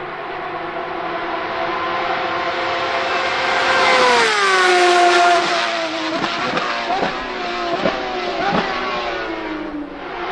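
Porsche 911 RSR's 4.0-litre flat-six with open exhaust at racing speed, growing louder as it approaches and dropping sharply in pitch as it passes about four seconds in. The note keeps falling after that, broken by four sharp cracks about a second apart.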